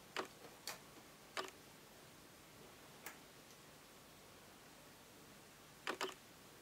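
Light, scattered clicks of a metal loom hook working rubber loom bands against the plastic pegs of a loom, about six at uneven intervals, with two close together near the end.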